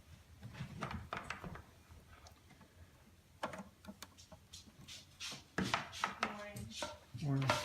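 A run of short, irregular clicks and knocks of hands handling hard objects, with some quiet talking in the second half.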